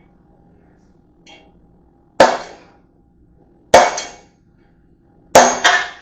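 Hammer blows on a rivet, setting a manufactured rivet through a pair of blacksmith's tongs: a light tap about a second in, then four sharp ringing metal strikes, the first three about a second and a half apart and the last two close together.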